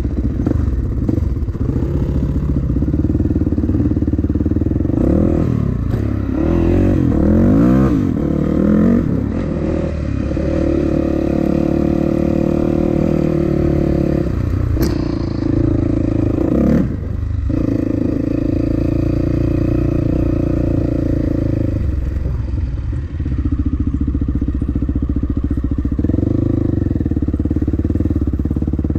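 Dirt bike engine running under the rider, heard close up from the bike, its revs rising and falling several times about five to nine seconds in, then running fairly steadily with a brief drop around seventeen seconds.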